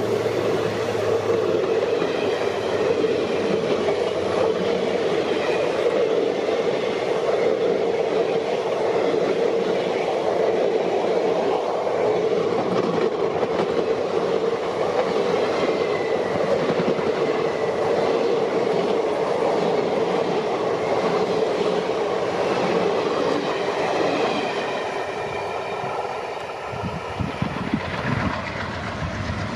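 A train running along the track, its wheels clattering steadily over the rails. The sound eases and quietens near the end.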